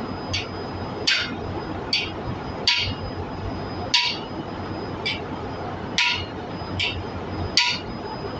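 Hammer blows on a steel installing tool, driving a new exhaust valve seat into an engine cylinder head: about nine sharp metallic strikes, roughly one a second, each with a short ring.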